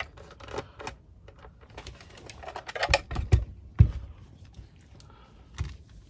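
Irregular plastic clicks and knocks as a flat tool pries the snap-fit front cover off a plastic HDD docking station's housing, with a few louder knocks about three to four seconds in.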